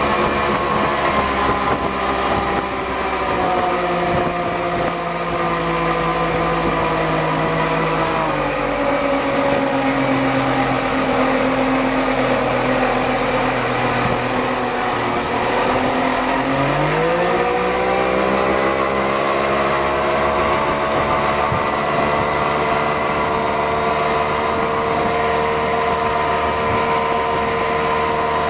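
Yamaha 60 hp outboard motor running a small boat under way, over the rush of its wake. About a third of the way in the engine note drops as it is throttled back. A little past halfway it climbs quickly as the throttle is opened again, then holds a steady cruising pitch.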